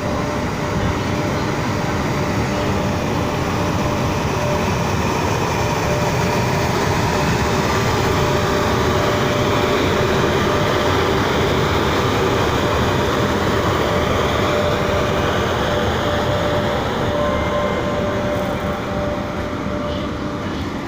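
EP1 AC electric locomotive and its passenger train moving past, with a steady rumble of running gear and a few steady whining tones from the locomotive's electrical equipment. The sound grows to its loudest about halfway through and then eases off.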